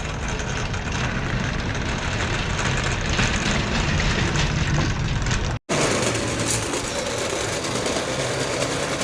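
Vehicle engine and road noise heard from inside a pickup cab, steady. About five and a half seconds in it cuts off abruptly, and a different steady background noise with less low rumble follows.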